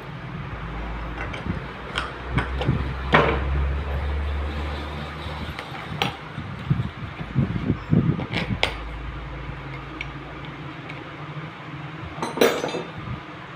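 Metal parts of a Suzuki Cultus starter motor clinking and knocking as it is put back together by hand: scattered short metallic clinks, the loudest near the end, over a low steady hum.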